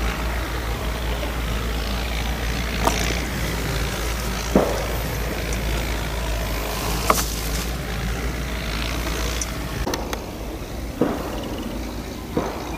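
Belarus 825 tractor's four-cylinder diesel engine working under load as it pulls a disc plough through dry soil: a steady low rumble, with half a dozen short sharp knocks scattered through it.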